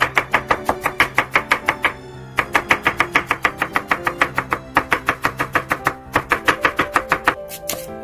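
Chef's knife julienning a carrot on a wooden cutting board: quick, even chopping strokes about six a second, with short pauses about two and six seconds in. Background music runs under the strokes.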